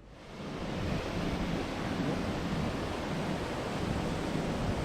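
Rushing water of a mountain gorge stream, a steady even rush that swells in over the first second.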